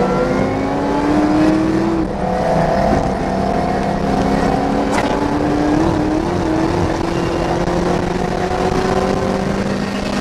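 2004 Ford Mustang SVT Cobra's V8 engine pulling hard under load, heard from inside the cabin: the pitch climbs, drops at an upshift about two seconds in, then climbs slowly again.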